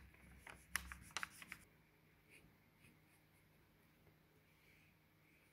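A finger rubbing and pressing on a sheet of paper to crease it, making a few short papery scratches and crackles in the first second and a half. After that there is near silence.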